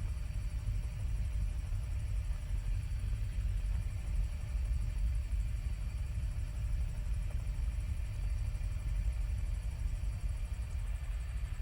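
Helicopter in flight: a steady, even low rumble with no change.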